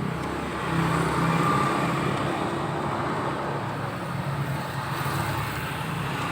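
Steady motor-vehicle traffic noise, a low engine hum with road noise.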